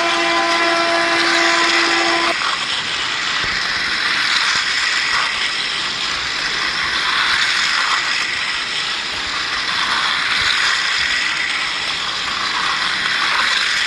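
A battery-operated toy train's electronic horn sound effect holds one steady tone and cuts off about two seconds in; after it comes the steady rattling whir of the toy trains' motors and wheels running on plastic track.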